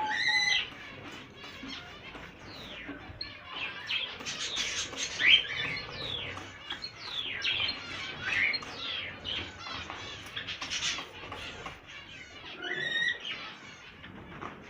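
Small cage birds in a breeding aviary chirping and squawking together: a busy chorus of short, quick, falling chirps. A longer steady call comes at the start and again near the end.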